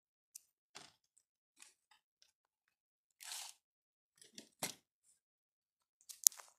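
Scattered soft taps and rustles from handling the recording phone, with a longer rubbing rustle about halfway through. A sharp click near the end is the loudest sound.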